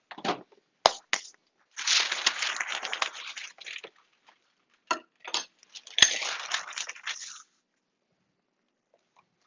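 Handling of plastic kitchen gear: several sharp plastic clicks, the loudest about six seconds in, and two stretches of crinkly rustling lasting a second or two each. It goes quiet near the end.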